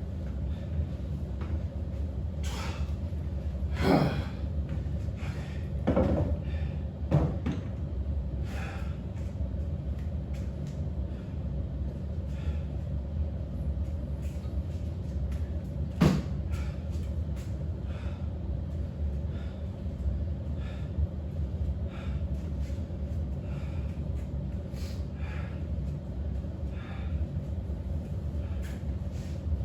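A steady low hum with a handful of scattered knocks and thumps; the loudest come about four seconds and sixteen seconds in.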